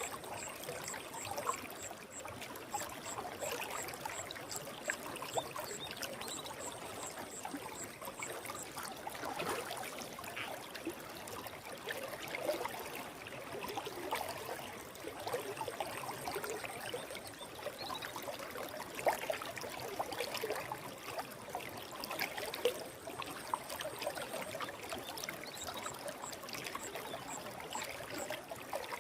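Forest stream flowing and gurgling over rocks, a steady rush of water. A thin, high ticking repeats a couple of times a second through the first part and again near the end.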